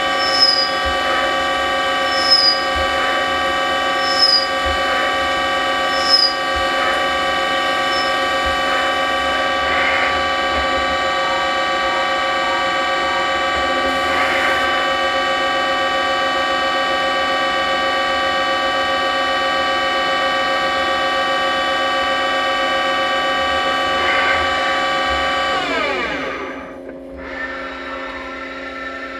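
Mori Seiki TL-1 CNC lathe spindle running at steady speed with a steady whine, coolant spraying, and short high chirps about every two seconds over the first several seconds. About 25 seconds in, the spindle spins down, its whine falling in pitch, and the machine goes quieter, with a few knocks.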